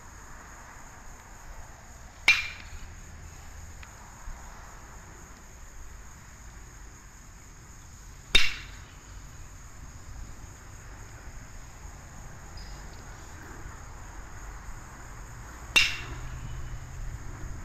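A baseball bat hitting pitched balls three times, about six and seven seconds apart, each a sharp crack with a brief ringing tail. A steady high insect chirping runs underneath.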